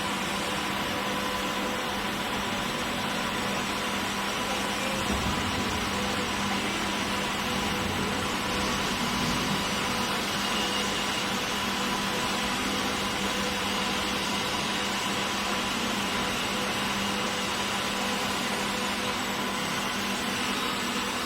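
Automatic pipe welding machine running steadily, a continuous hum with hiss over it.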